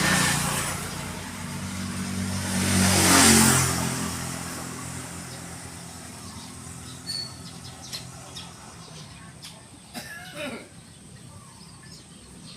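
A motor vehicle passes by: its sound swells to a peak about three seconds in, then fades as its pitch drops, after another fading at the start. A few short bird chirps follow over the quieter background.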